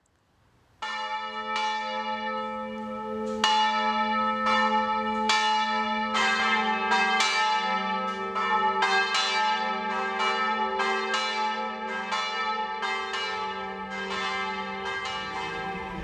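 Church bells ringing, starting about a second in with strikes about a second apart; from about six seconds in the strikes come faster and overlap as more bells join.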